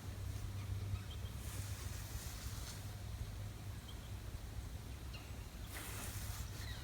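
Soft scraping rustles of a body shifting in coarse, damp sand, recorded close up as foley: a faint brush about two seconds in and a louder scrape near the end.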